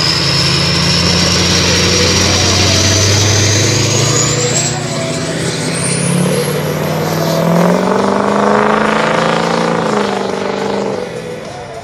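2005 Ford F-250's 6.0L Power Stroke turbo diesel with a full MBRP exhaust, accelerating away, with the turbo whistle climbing steadily in pitch over the engine note. The sound fades near the end as the truck pulls off into the distance.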